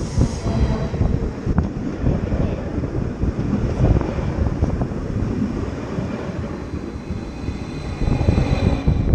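A Stadler FLIRT electric multiple unit (tpf RABe 527) passing close by: its wheels rumble and clatter on the rails, with a faint steady high whine above the noise. The rumble eases just as the last car goes by.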